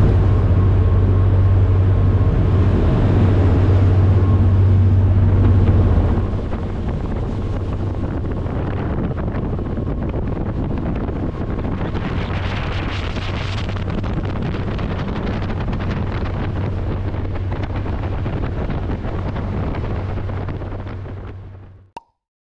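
High-speed ferry under way: a steady low engine drone with water rushing in the wake and wind on the microphone. The drone is louder for the first six seconds, then a little quieter, and the sound fades out near the end.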